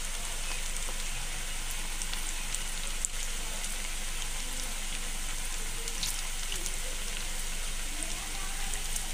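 A freshly added batch of potato bites deep-frying in hot oil in a kadhai: a steady, dense sizzle of bubbling oil with a few sharp pops now and then.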